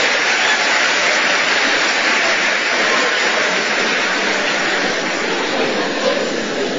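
Live audience applauding, a dense steady clapping that eases off slightly near the end.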